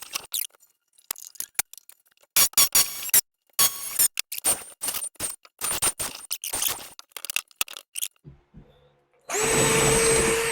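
Scattered metallic clinks and knocks, then about nine seconds in a cordless drill starts up and runs steadily with a held whine, drilling through a rear leaf-spring bushing to free it.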